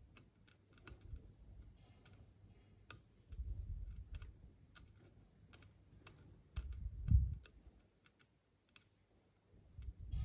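Light, irregular clicks of a thin metal tool picking at the bent pins of a motherboard CPU socket, with a few dull low bumps of hand handling, the loudest about seven seconds in.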